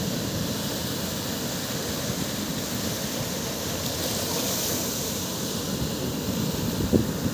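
Sea surf breaking and washing up a sandy, rocky shore: a steady rushing hiss. About four seconds in, a wave splashes over the wooden boat at the water's edge and the hiss grows brighter. A brief thump comes near the end.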